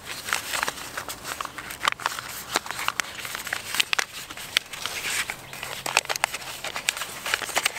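Sheet of paper crinkling and crackling in irregular bursts as folded layers of an origami paper boat are pulled apart and worked into shape by hand.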